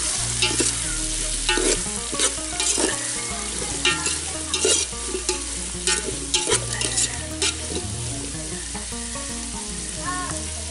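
Sliced onions frying in mustard oil in an aluminium pot, sizzling steadily as they are sautéed until soft. A steel spoon stirs them, with repeated clicks and scrapes of the spoon against the pot.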